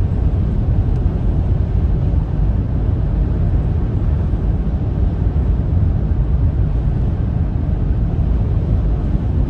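Steady low rumble of a car travelling at motorway speed, heard from inside the cabin: tyre and wind noise.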